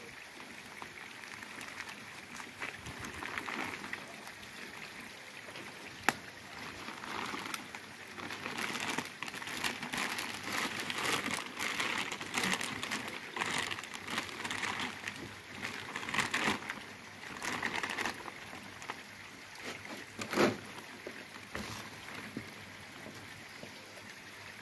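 Clear plastic fish-transport bag rustling and crinkling in irregular bursts as it is handled and the cable ties at its neck are cut with scissors. A sharp click comes about six seconds in, and a louder short knock comes near twenty seconds in.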